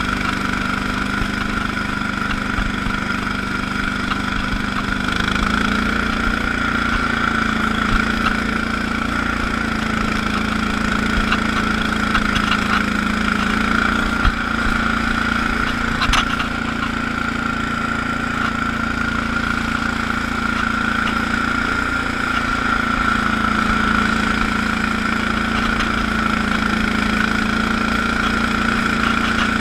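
Allis-Chalmers HB-112 garden tractor engine running steadily while the tractor drives through snow, with a steady high whine over the engine note. The engine note steps up slightly about five seconds in, and there are two sharp knocks around the middle.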